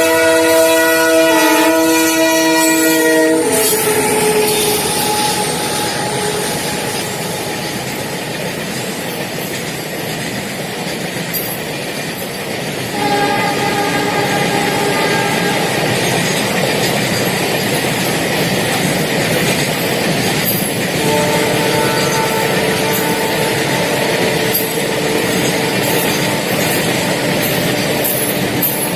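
Diesel freight locomotive horn sounding a multi-tone blast for about three seconds, then a long freight train rolling past with wheels clacking over the rail joints. Steady whining tones join the rumble about halfway through and carry on.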